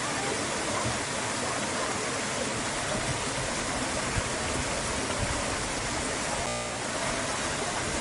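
Stream water rushing and splashing over and between boulders, a steady even rush.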